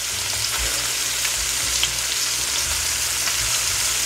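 Two ribeye steaks searing in foaming butter in a hot cast iron skillet: a steady sizzle with a couple of small pops.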